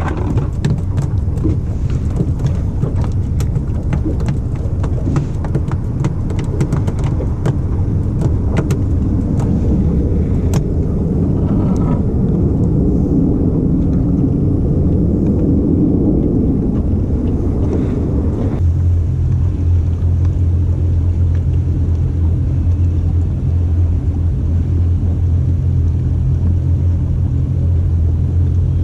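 An engine running underway, a loud steady low rumble with many knocks and rattles over roughly the first two-thirds. About 19 seconds in it changes to a smoother, steady low hum.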